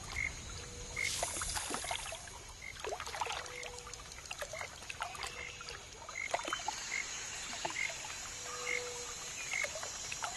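Calm lakeside ambience: water lapping and trickling with small scattered clicks, under a short high chirp from a small creature that repeats evenly, a little more than once a second.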